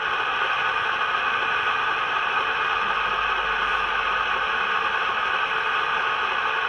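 Hornby Class 31 model locomotive's DCC sound decoder playing its ventilator (cooling fan) sound through the model's small speaker: a steady, even rushing hiss.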